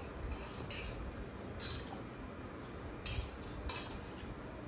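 Eating noises at a table: several short slurps of noodles and the scrape and clink of a fork and chopsticks against metal bowls.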